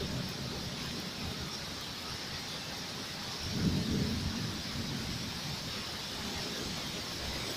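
Rain falling steadily with an even hiss during a thunderstorm, and a low rumble of thunder that swells about three and a half seconds in and fades after about a second.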